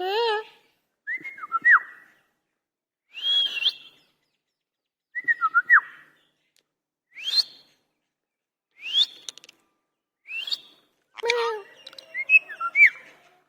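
Indian ringneck parakeet giving a string of short whistles and calls, one every second or two, several sweeping sharply upward in pitch, with a longer run of chattering calls near the end.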